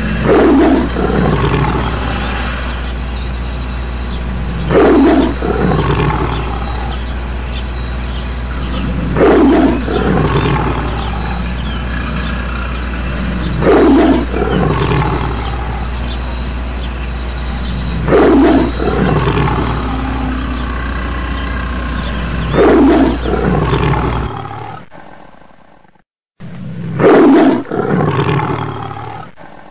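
Dinosaur roar sound effects repeating about every four and a half seconds, each a loud, falling roar over a steady low hum. Near the end the hum stops, there is a brief silence, and one more roar follows.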